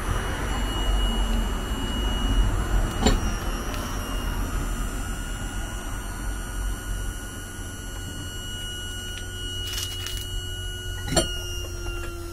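A motorhome's levelling-jack motor running steadily as it raises the vehicle on its jacks, a whine over a low rumble. Its pitch sinks slightly in the second half, and there are sharp clicks about three seconds in and near the end.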